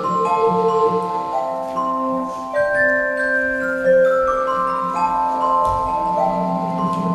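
Live instrumental music from a small band with saxophone and cello: overlapping held notes moving in steps over a sustained low line. There is a single low thump near the end.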